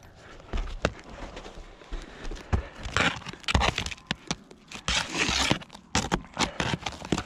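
Cat's claw nail puller scraping and prying under asphalt roof shingles to work out old roofing nails: a run of sharp clicks and taps, with longer gritty scrapes about three seconds in and again past five seconds.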